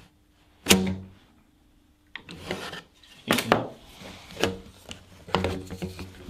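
Ribbed plastic vacuum hose being wrestled against a plastic spring clamp and a bench vise. A sharp knock comes near the start, then irregular scraping, rubbing and knocking of the corrugated hose and clamp.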